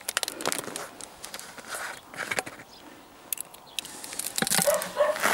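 Screw cap of a plastic bottle being twisted off by hand: a run of small crackling clicks in the first couple of seconds, then quieter handling of the open bottle.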